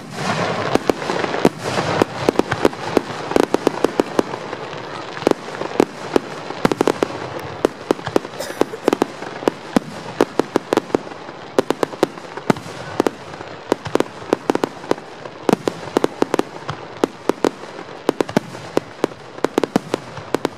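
Aerial fireworks display: a rapid, irregular barrage of shell bursts, several loud bangs a second, over a continuous noisy background between the bangs.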